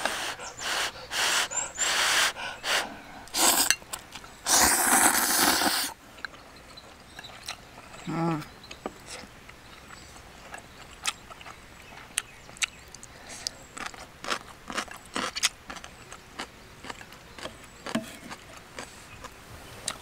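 Instant ramen noodles slurped off chopsticks in several short pulls, then one long slurp about five seconds in. After that, a short hum near eight seconds and scattered light clicks of chopsticks and spoon on a metal plate.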